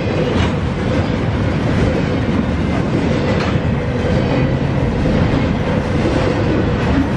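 Double-stack intermodal freight train rolling past close by: a steady rumble of steel wheels on the rails with a continuous hum and a few clicks as the wheels cross rail joints.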